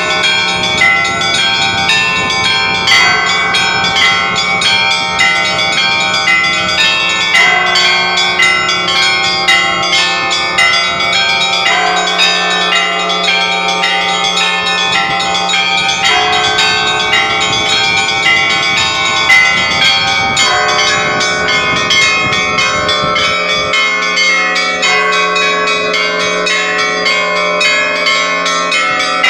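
A set of new Orthodox church bells being rung: quick, overlapping strikes of several bells at different pitches, each ringing on into the next, over a low humming tone that drops out for a few seconds about twelve seconds in and again near the end.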